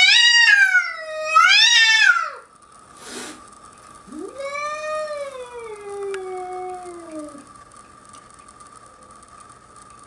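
A cat yowling: one long wavering call that rises and falls twice, then after a short pause a second long call that climbs and slowly sinks away.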